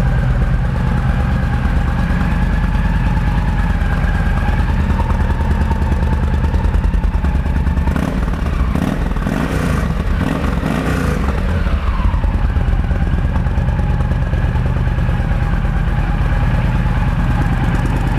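2007 Yamaha V-Star 1300 Tour's fuel-injected, liquid-cooled 1300cc V-twin running through its stock exhaust at idle, a steady, healthy-sounding engine. About halfway the note briefly shifts and rises, then falls back to idle.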